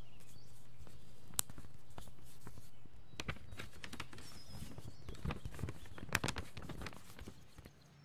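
A sheet of paper being handled and unfolded: scattered light rustles and clicks, busier after a few seconds, over a steady low room hum, fading out near the end.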